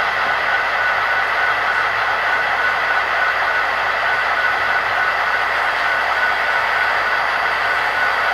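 HO scale model train of CN SD40-2W diesel locomotives running: a steady hum with a constant high whine running through it.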